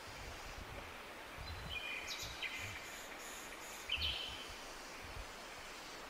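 Forest ambience: a steady background hiss with low, uneven rumbling, and a bird calling a few short, high notes about two seconds in and once more, loudest, about four seconds in.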